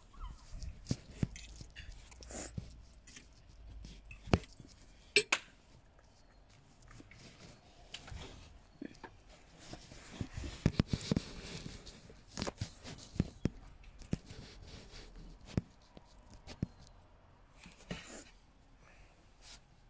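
Irregular clicks, light knocks and clinks, with a few sharp ones about four and five seconds in and a busier patch in the middle.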